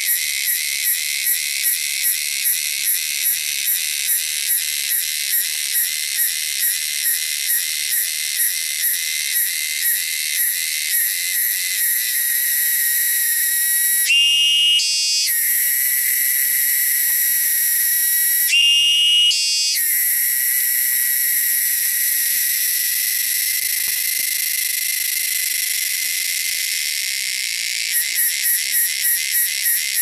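A cicada singing loud and shrill. It starts as a pulsing song of about two pulses a second, turns into a steady buzz about twelve seconds in, breaks twice into a brief louder rising phrase, and goes back to pulsing near the end.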